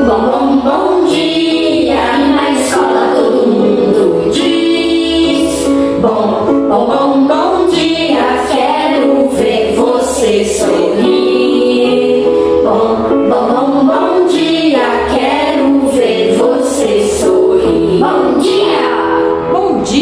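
Children's song: a woman singing over an instrumental backing with a repeating bass line.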